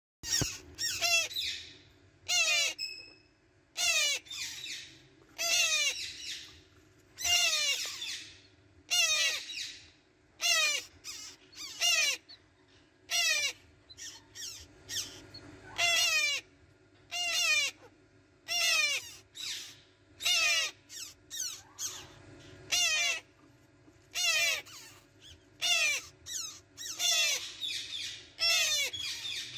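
Parrot chicks giving short, rasping begging calls one after another, about one a second, over a faint steady hum.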